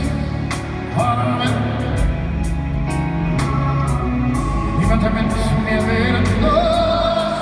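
Live pop ballad performance: piano and upright double bass with a held, wavering vocal melody over low sustained bass notes, and a steady beat of about two ticks a second.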